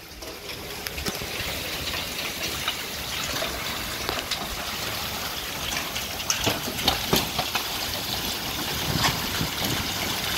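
Heavy downpour of rain and large hail, a steady hiss scattered with many sharp knocks and clatters of hailstones striking, denser in the second half. The storm noise swells over the first couple of seconds.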